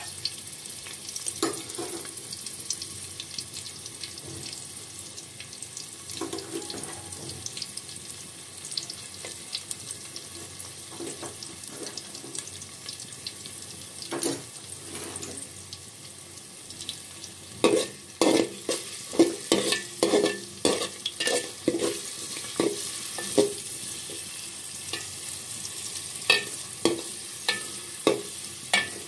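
Sliced onions sizzling in hot oil in a metal pot, with a spoon knocking and scraping against the pot as they are stirred. The knocks come in a quick run through the middle and again near the end.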